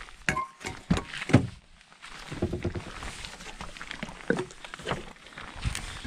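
A run of knocks and thumps from a car being packed up, with a car door open and plastic gallon water jugs picked up off the ground; the loudest thump comes about a second in, followed by scattered clatter and shuffling.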